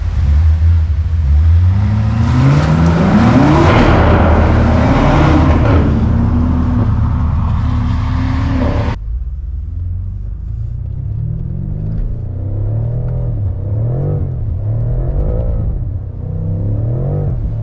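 BMW M5 Competition's twin-turbo V8 revving and accelerating, its pitch climbing. About nine seconds in the sound cuts abruptly to a quieter stretch of short revs that rise and fall about once a second.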